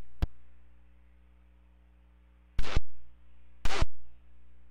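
Air traffic control radio channel with nobody talking: a steady low hum, a click just after the start, and two short bursts of static about a second apart past the middle.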